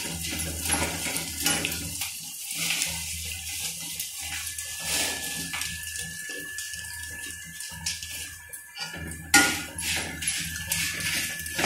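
Corn flakes frying in an iron kadai, a steady sizzling hiss, while a wire skimmer stirs them and scrapes and clicks against the pan. One loud metal knock comes a little over nine seconds in.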